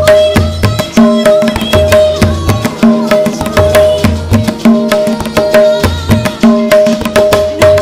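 Music with a steady, repeating percussion beat of low drum hits and sharp strokes under a pulsing melodic note.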